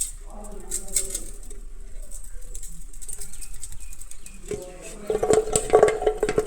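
A rubber eraser knocking and sliding about inside a small box being shaken, as scattered soft knocks that grow into a faster, louder rattle about five seconds in, with a voice-like tone mixed in near the end.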